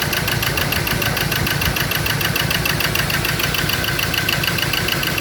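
Ford Ranger diesel engine idling roughly with a fast, even clatter, running on only cylinders 3 and 4: cylinders 1 and 2 are misfiring, and their injector connectors are unplugged. The owner finds no electrical pulse reaching injectors 1 and 2.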